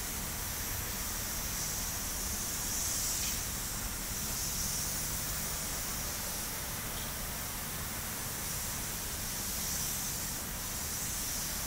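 Painting robot's compressed-air spray gun hissing steadily as it atomises paint, swelling a few times, over a low steady hum.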